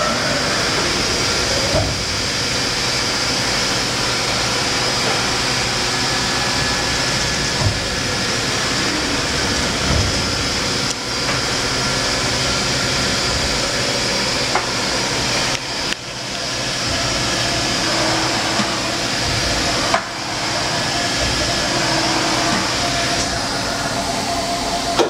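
Fadal VMC 3016 CNC vertical machining centre running with its table traversing under servo drive: a steady, loud machine noise with a constant high whine and a few light knocks.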